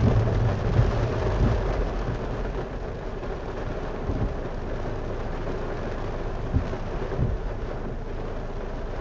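Heavy rain from a thunderstorm drumming on a stopped car, heard from inside the cabin. A low rumble fades over the first few seconds, and two short thumps come near the end.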